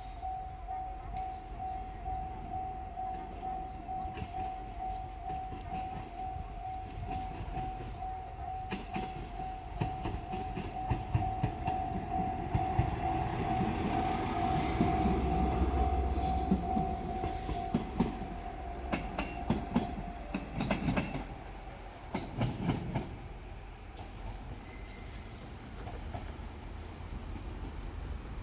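Level-crossing warning bell ringing in a steady, even pulse while a JR Shikoku 1500 series diesel multiple unit passes. The train's rumble builds to a peak midway, with wheels clicking over rail joints. The bell cuts off about twenty seconds in and the train fades away.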